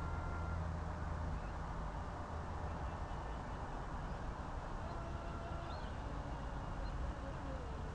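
Steady outdoor lakeside noise with a low wind rumble on the microphone. There is a faint, thin, distant whine, rising slowly in pitch near the end, and a few faint high bird chirps.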